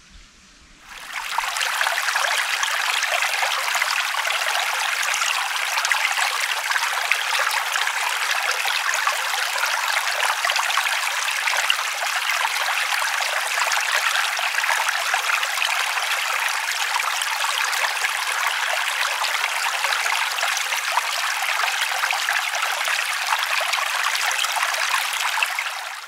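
Steady rushing of a mountain stream, fading in about a second in and running on without change.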